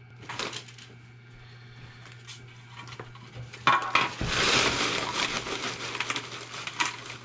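A paper bag rustling as it is lifted and upended, then a heap of French fries tumbling out onto a plate: a dense rustle and patter starting about four seconds in and lasting about three seconds.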